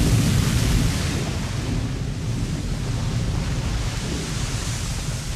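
Steady low rumble with a hiss over it, from a steam plume where molten lava pours into the sea. Loudest in the first second, then easing slightly.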